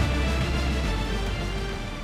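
Closing theme music with a strong bass fading out.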